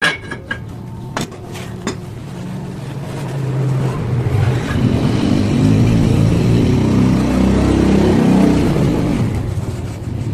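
Waste-oil burner of a blacksmith's forge lighting: a few sharp clicks, then a low roar that builds over several seconds as the fire takes hold and eases slightly near the end.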